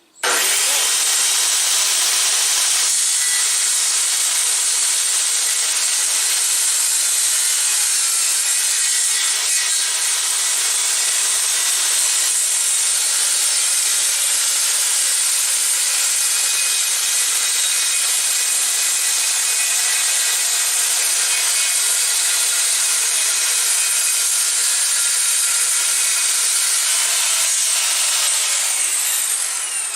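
Handheld electric circular saw starting up abruptly and then running steadily as it rip-cuts along a piece of wood, its blade guided by a clamped straight-edge rail. The noise eases slightly near the end as the cut finishes.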